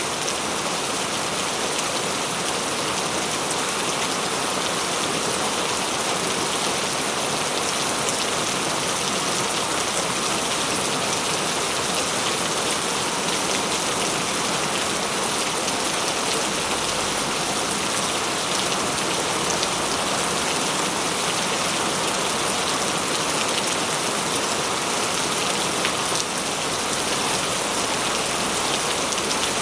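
Loud, heavy rain falling steadily, a constant hiss with dense drop patter on a surface.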